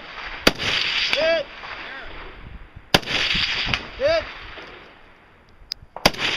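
Rifle shots fired at steel targets, three sharp reports about two and a half to three seconds apart, each trailing off in echo. About a second after each of the first two shots comes a short ringing tone, the distant steel target being hit.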